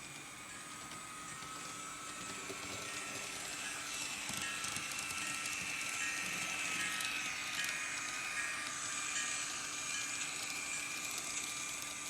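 A DCC-controlled model locomotive running along the track: a steady electric whine with fine ticking and clatter from the rails. It grows louder toward the middle and eases off a little near the end.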